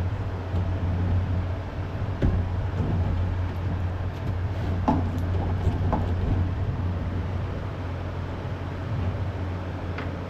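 A steady low hum under a few scattered sharp clicks and knocks as a wrench and socket are worked on the bolt of a belt grinder's bottom platen wheel.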